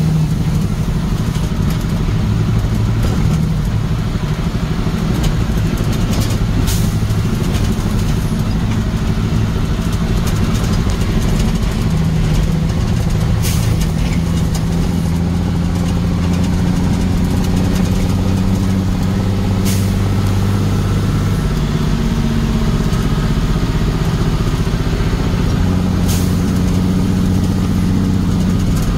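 A vehicle's engine running steadily while driving, with a short sharp click about every six and a half seconds.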